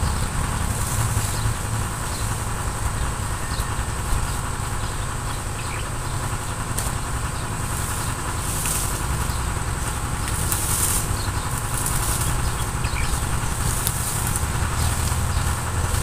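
A steady low engine-like hum, with a steady high-pitched drone above it.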